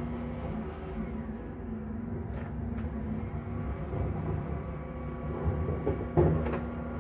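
Refuse collection lorry running steadily, with a low hum and rumble muffled by window glass. A sharp clatter about six seconds in.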